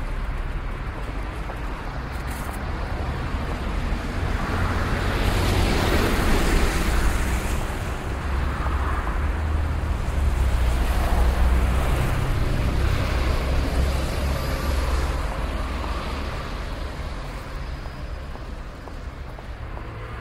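City street traffic: a steady low rumble of engines with cars passing one after another, swelling loudest a few seconds in and again about halfway through, then easing off.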